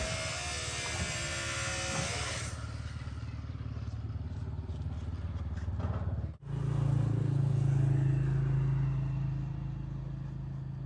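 A motor running with a steady low hum, broken by edit cuts. A loud hiss lies over it for the first two seconds or so.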